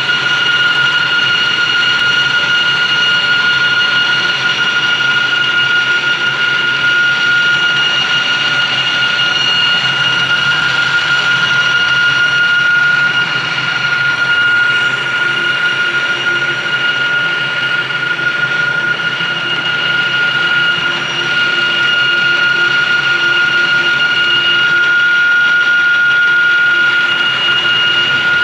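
Lathe boring the bore of a spur gear: steady machine running noise with a high, steady whine.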